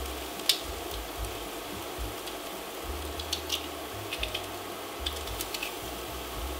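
Diced onion sizzling steadily in oil in a skillet, with scattered sharp clicks and taps of a metal garlic press as cloves are squeezed over the pan.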